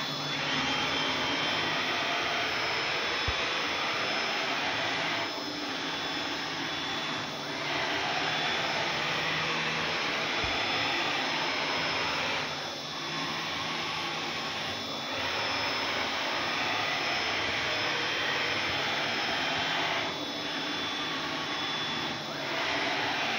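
Mini CNC router running a toolpath, its 500W spindle turning at high speed while the stepper-driven axes move. The sound is a continuous whine and hiss that turns quieter three times, for about two seconds each, with even spacing.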